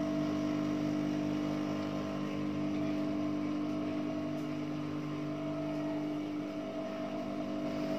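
Steady electric hum of a Juki industrial sewing machine's motor left running while the machine is not stitching, a constant low tone with no change in speed.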